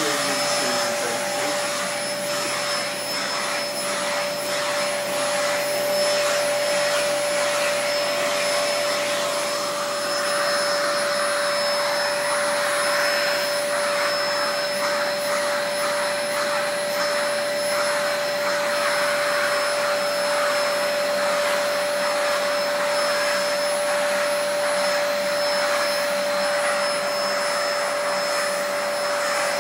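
Vacuum cleaner running steadily with a constant whine from its motor, its brush nozzle being drawn over a cat's fur. From about ten seconds in, the suction hiss swells and fades as the nozzle moves.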